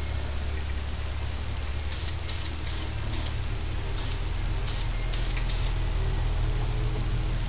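Aerosol spray can of Krylon metallic silver paint hissing in eight short bursts from about two seconds in to just before six, over a steady low hum.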